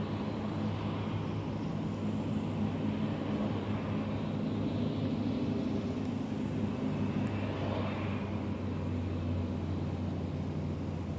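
Engines of old farm tractors running steadily as they drive past one after another, a low engine drone that swells about eight seconds in as one passes close.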